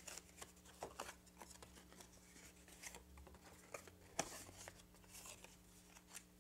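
Faint rustling and soft ticks of folded cardstock pages being creased and handled, over near-silent room tone.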